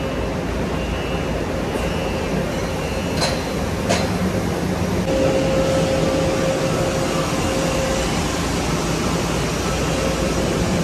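Steady running noise of factory machinery with a constant hum, stronger for a few seconds in the middle, and two sharp metallic clicks a little over three seconds in.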